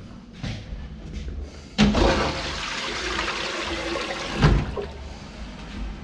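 A toilet flushing: a sudden rush of water that runs for about two and a half seconds and ends with a single thump.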